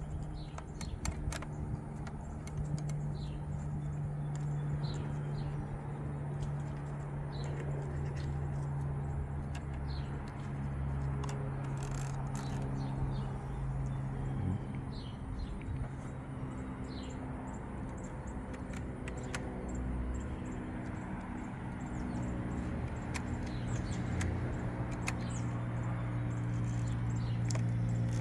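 A steady low hum with small birds chirping now and then, and scattered light clicks.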